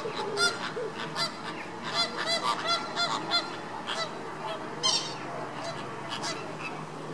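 Caribbean flamingos in a flock honking: a run of short repeated calls, several a second, thickest about two to three and a half seconds in and thinning out after about five seconds.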